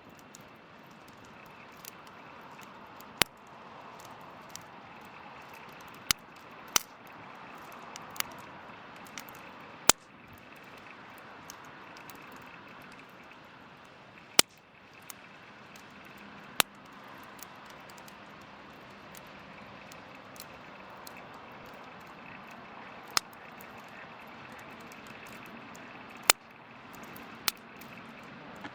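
Wood fire crackling with a steady low hiss and sharp, irregular pops every second or few.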